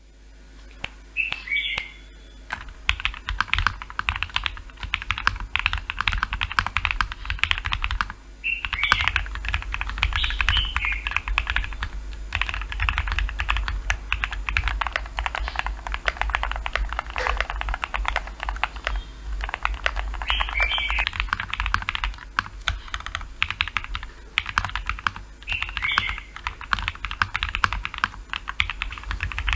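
Fast, continuous typing on a mechanical keyboard fitted with First Love switches (polycarbonate top housing, POM bottom housing, LY stem, light 50 g spring). It starts about two and a half seconds in and pauses briefly near eight seconds.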